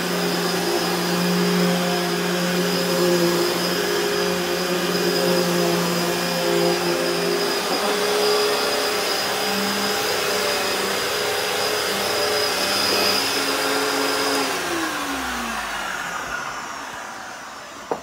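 Eureka Victory upright vacuum cleaner running steadily over rug and carpet. About 14.5 seconds in it is switched off and the motor winds down with a falling pitch. A single sharp click comes at the very end.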